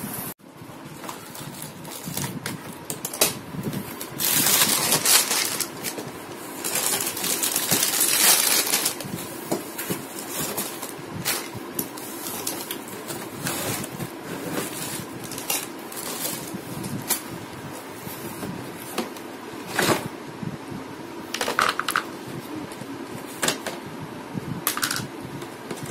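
Unpacking a plastic toy kitchen set from its cardboard box: crinkling plastic bags and cardboard, with two longer bouts of rustling about four and seven seconds in, and light plastic clicks and clatters as parts are set down on a tiled floor throughout.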